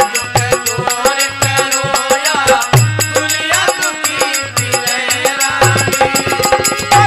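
Instrumental interlude of a Rajasthani devotional folk song (chetavani bhajan): hand drums keep a brisk, steady beat with deep bass strokes, and a melodic instrument plays bending phrases over it.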